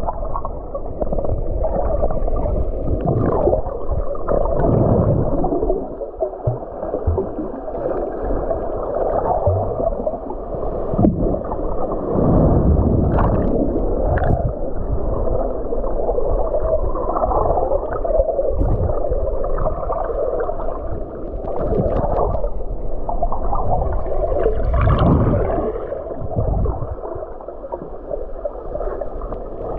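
Muffled sloshing and gurgling of water, continuous and churning, swelling and easing by turns with quieter spells about six seconds in and near the end.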